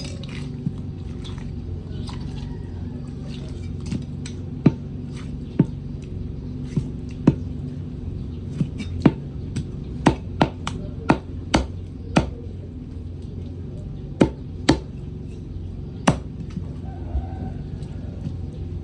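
Blade chopping through chicken pieces: a series of sharp, irregular chops, thickest in the middle stretch, over a steady low hum.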